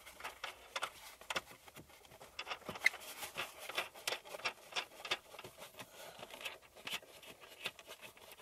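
A wing nut spun by hand onto the threaded stud of a Peugeot 206 tail-light unit: a run of small irregular clicks and scrapes as fingers turn the nut and rub against the trim.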